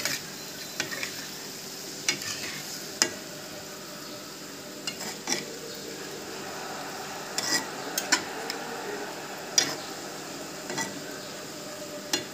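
Metal spatula stirring chopped vegetables in a coated wok. It scrapes and knocks against the pan about a dozen times at irregular moments, over the steady hiss of the vegetables cooking in the hot pan.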